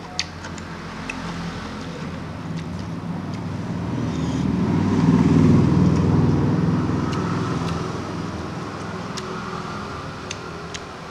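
A motor vehicle passing by, its engine rumble swelling to a peak about five seconds in and then slowly fading. A few light clicks from eating by hand off a plate sit on top.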